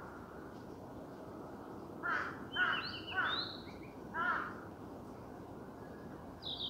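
A crow cawing, four caws in quick succession about two seconds in and another at the very end, over a steady outdoor hiss.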